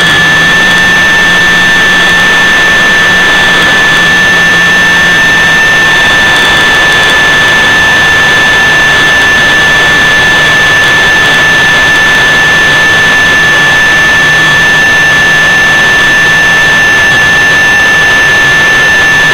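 Homemade turbine jet engine running at steady high power: a very loud rushing noise with a steady high-pitched whine.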